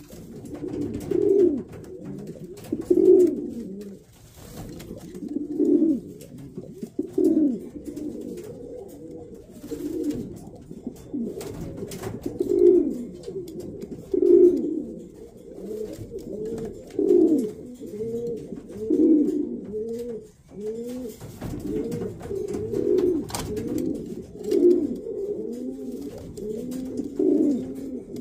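Racing pigeons cooing, a low coo repeated every second or two throughout.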